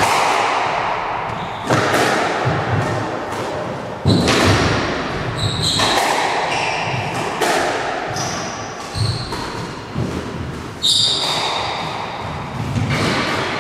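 Squash rally: the ball strikes sharply off rackets and walls every second or two, each hit echoing around the court, with short high squeaks of court shoes on the wooden floor.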